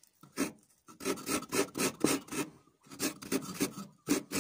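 Half a coconut scraped against the serrated metal blade of a hand coconut grater: a fast, even run of rasping strokes, about five a second, pausing briefly twice.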